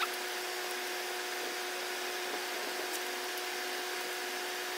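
Steady machine hum with an even hiss, and a click at the start followed by a few faint ticks.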